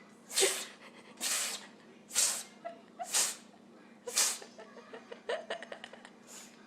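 An animal sneezing repeatedly, five sharp sneezes about a second apart, followed near the end by a run of quick little clicks.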